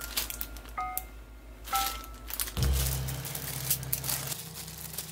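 Thin plastic disposable gloves crinkling as hands squeeze and roll a sticky cocoa-muesli mixture into a ball. A few light music notes sound in the first half, and a low steady hum sets in about two and a half seconds in.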